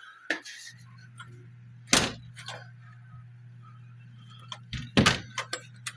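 A series of sharp knocks and clicks, the loudest about two seconds in and a double knock near the end, over a steady low hum that starts just under a second in.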